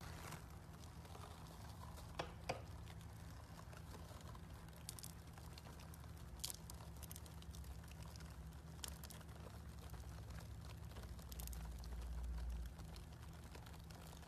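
Soft pink slime being stretched and pressed by hand, giving faint crackles and small clicks, with two sharper clicks about two seconds in, over a low steady hum.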